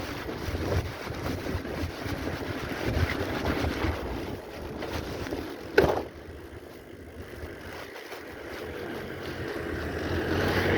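Wind buffeting the microphone of a camera carried on a moving bicycle, with the rumble of the ride under it. About six seconds in there is a brief sharp squeal falling in pitch, after which the wind noise drops and then slowly builds again.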